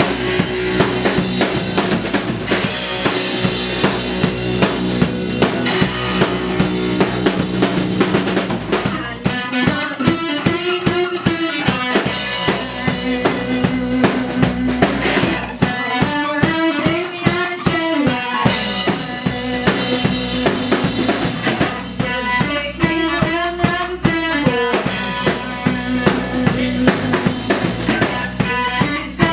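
Live rock band playing a song: drum kit with regular bass drum and snare hits over a full band, with a melodic line that rises and falls in repeating phrases.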